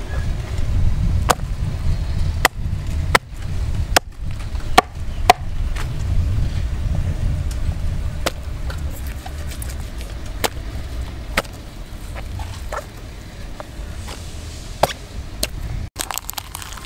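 Sharp, irregular knocks of a cleaver striking a whole chicken on a wooden chopping block, about a dozen, most of them in the first half, over a steady low rumble.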